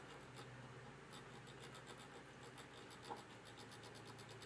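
Faint, rapid ticking and scratching of an audio power amplifier's gain-control knob being turned back and forth by hand, working freshly sprayed contact cleaner into a dirty potentiometer.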